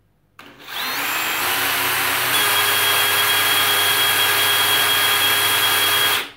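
DeWalt 20V MAX XR cordless drill running free in second gear with the trigger held down, at about 2,000 rpm. The motor whine rises as it spins up over the first couple of seconds, holds steady, then stops suddenly near the end.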